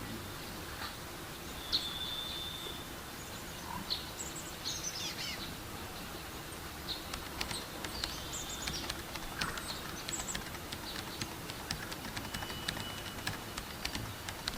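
Forest ambience: several wild birds chirping and calling over a steady low background hiss, with a couple of short held whistles and a run of quick high ticks in the second half.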